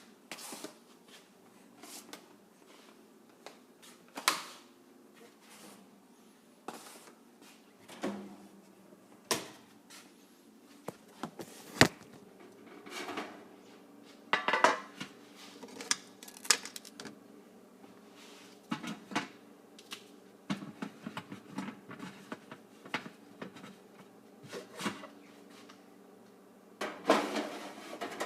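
Kitchen handling sounds: scattered clicks, knocks and short clatters of dishes and utensils being moved and doors or drawers opened and shut, over a faint steady hum, with the sharpest click about twelve seconds in.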